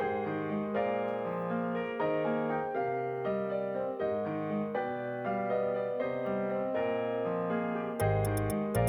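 Background music with a piano-like keyboard melody; about eight seconds in, a bass line and light ticking percussion join.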